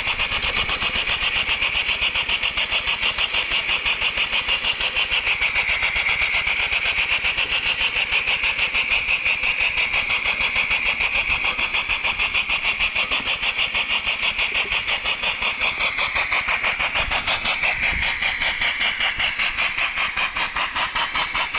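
Homemade steam engine, a 150cc single-cylinder lawnmower engine converted to run on steam from a coal-fired boiler, running with a rapid, even chuffing of steam exhaust over a hiss.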